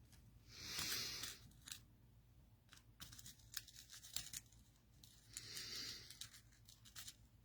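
Paper being cut in two long strokes, each about a second, with faint clicks and taps of paper handling between them.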